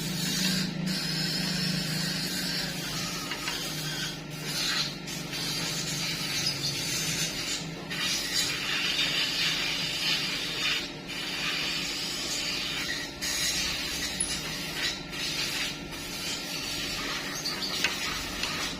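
Stick welding arc crackling and sizzling steadily, cutting out briefly several times as the arc is broken and restruck.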